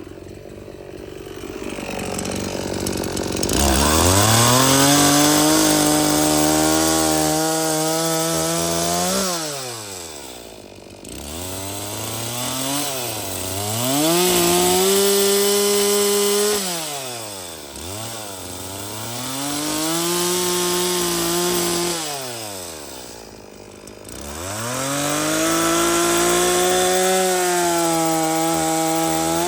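Chainsaw cutting a wood bowl blank, throttled up four times: each time the engine pitch climbs, holds under load through the cut, then falls back.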